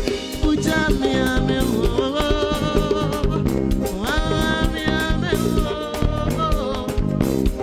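A live band with drum kit and keyboard plays a steady upbeat groove behind a male lead singer, who holds one long note about halfway through.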